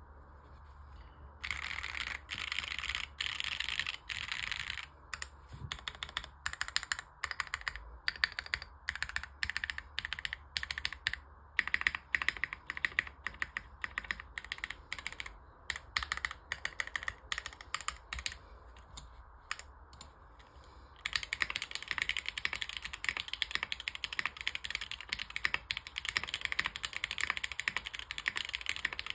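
Typing on a custom mechanical keyboard with Gateron KS-3 switches in full black housings, filmed, mounted in an aluminium plate and topped with Razer keycaps. Fast typing starts about a second and a half in, breaks into separate, spaced keystrokes after a few seconds, and turns to fast, even typing again for the last eight seconds or so.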